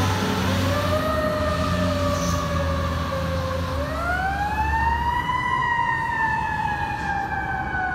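Fire truck siren wailing as the apparatus drives away: the pitch sinks slowly, climbs again about four seconds in, then falls away slowly. A heavy engine rumble runs under it through the first half.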